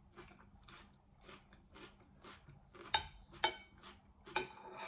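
Close-up chewing of a mouthful of grinder sandwich, a steady rhythm of about two chews a second, with a few louder crunches about three and four and a half seconds in.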